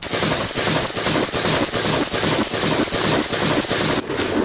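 Saiga .223 semi-automatic rifle firing a rapid string of single shots, about four a second, starting abruptly and stopping about four seconds in.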